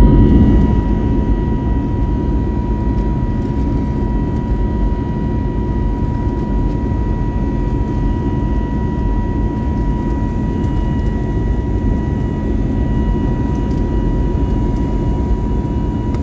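Cabin noise inside an Airbus A320 climbing out after takeoff: a steady rumble from the jet engines and rushing air, with a steady whine above it. It is a little louder at the very start, then settles.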